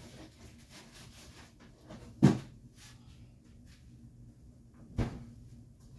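Two knocks about three seconds apart, the first the louder, from kitchen doors shutting as food is put away, over a faint steady low hum.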